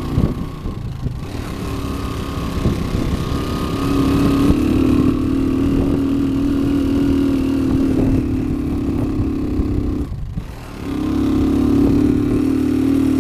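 Motorcycle engine running at a steady road speed. The engine sound drops out briefly about ten seconds in, then comes back at the same steady pitch.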